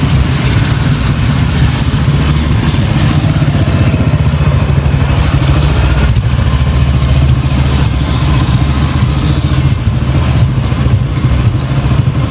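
Motorcycle engine of a sidecar tricycle running steadily close by: a loud, even, low drone.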